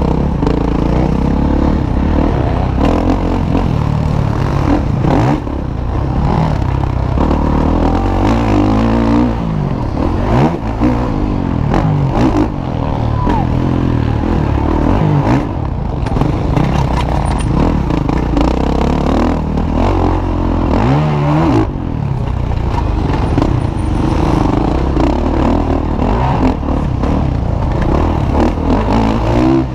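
Motocross bike engines revving hard as they ride the track, their pitch repeatedly climbing and dropping with throttle and gear changes.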